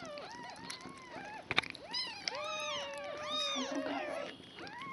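One-day-old kittens mewing over and over, several short rising-and-falling cries overlapping, with one longer drawn-out cry in the middle. A single sharp click comes about a second and a half in.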